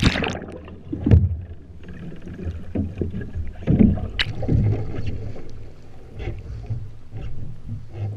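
Water churning and splashing around a sea kayak as it rolls under and back upright with a Greenland paddle, muffled while the deck camera is submerged. Sharp splashes come about a second in and again about four seconds in.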